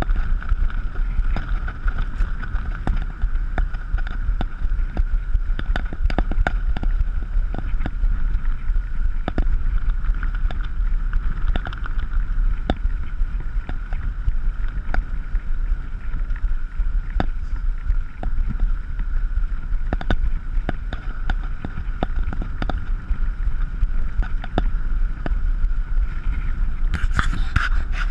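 Riding noise from a bicycle on a concrete path: wind rumbles on the microphone, the tyres rush over the pavement, and scattered clicks and knocks come from the ride. A thin steady hum sits above the noise throughout.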